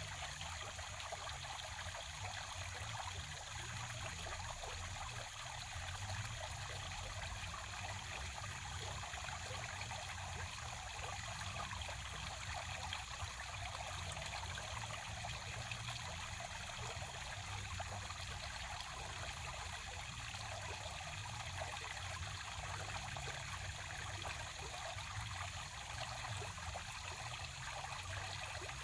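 Water trickling and splashing steadily down the tiers of a three-tier cement garden fountain.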